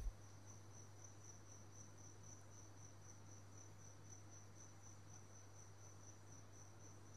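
Near silence: a cricket's faint, steady, pulsing high trill over a low electrical hum, with a brief low thump right at the start.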